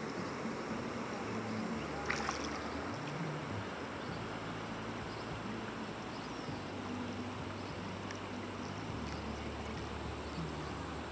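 Steady rush of a broad, high-running river, with low wind rumble on the microphone. A short sharp sound stands out about two seconds in.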